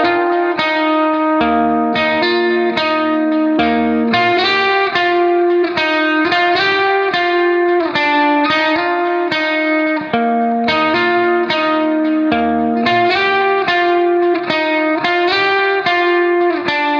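Background music: a plucked guitar melody, several notes a second, over a bass line.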